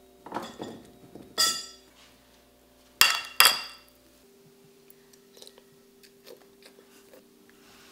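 A metal spoon and a ceramic soup bowl clinking: a softer clink about a second and a half in, then two sharp, ringing clinks close together about three seconds in, followed by faint small clicks.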